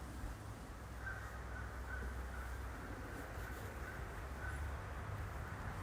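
A bird calling in a quick run of short, same-pitched calls, about two a second, starting about a second in, over a steady low rumble.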